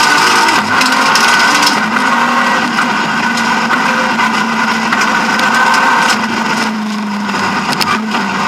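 BMW E36 M3 rally car's straight-six engine running hard during a stage, heard from inside the cabin. It eases off briefly about seven seconds in, then picks up again.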